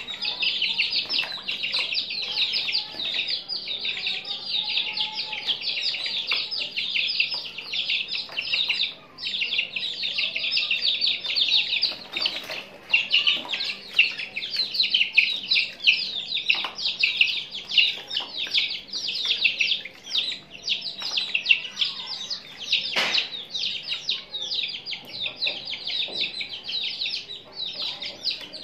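A brood of domestic chicks peeping constantly, many short high calls overlapping in a dense chorus, with a few brief splashes and knocks of water in the plastic tub.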